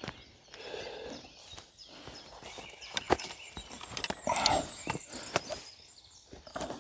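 Footsteps of a hiker walking along a trail, irregular steps and crunches with a few sharper knocks.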